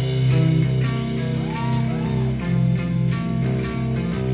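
Background rock music with guitar and a drum beat, with two short bent guitar notes about halfway through.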